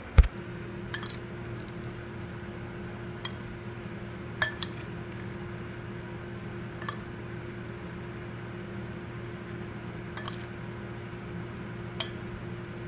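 A spoon clinking against a bowl about eight times, at irregular intervals, as salted fried green peas are stirred; the first clink is the loudest. A steady low hum runs underneath.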